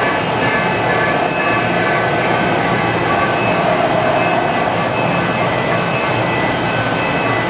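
Mori Seiki SV-50/40 CNC vertical machining center running under power: a steady mechanical hum and rush with several high whining tones held throughout, and a lower tone that swells briefly in the middle.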